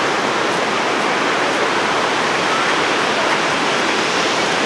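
Reedy River Falls: water pouring over the rocks in a steady, even rush.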